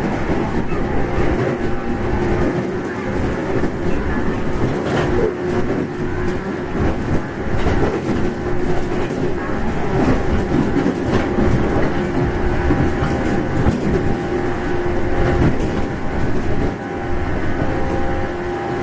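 Interior running sound of a JR 415 series 1500-subseries electric multiple unit under way: continuous rumble of wheels on rail with clicks over rail joints. A steady hum runs under it and stops about three-quarters of the way through.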